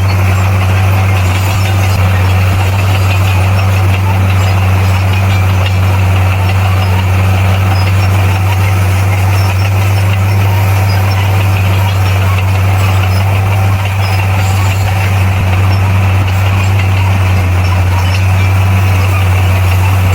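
Bulldozer's diesel engine running steadily at a constant speed, a loud, deep, unchanging drone.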